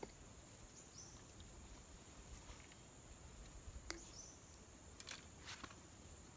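Near silence: faint outdoor ambience with a steady high insect drone and a few faint clicks.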